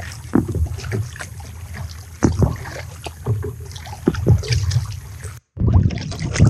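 Double-bladed kayak paddle strokes dipping and splashing in calm sea water at an irregular pace, with a brief dropout to silence near the end.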